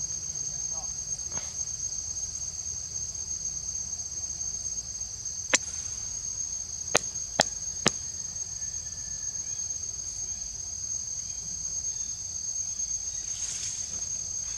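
A steady, high-pitched insect chorus runs on unbroken. Four sharp clicks come about halfway through, three of them close together.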